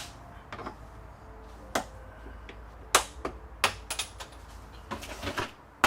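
A string of sharp, irregular plastic clicks and snaps from interior trim being pried off a car body, its clips popping loose.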